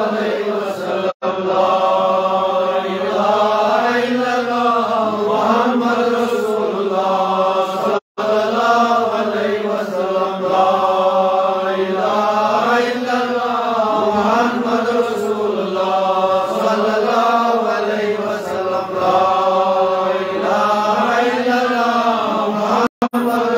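Islamic devotional chanting by a single voice, in long drawn-out melodic phrases that rise and fall. It is broken three times by a sudden, very short drop to silence.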